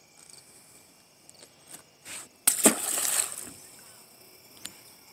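A small largemouth bass splashing into the pond as it is tossed back, a sudden loud splash about two and a half seconds in that dies away over about a second.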